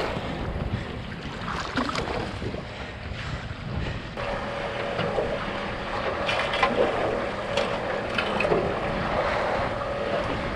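Wind buffeting the microphone over water sloshing and splashing against the side of a small boat at sea, with a few light knocks. A faint steady hum comes in about four seconds in.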